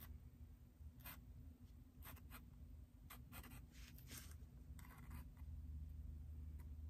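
Sharpie permanent marker drawing on sketchbook paper: a series of short, faint, quick sketching strokes of the felt tip on paper.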